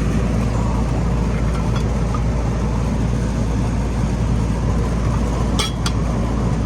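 A steady low rumble, with two sharp clicks close together about five and a half seconds in.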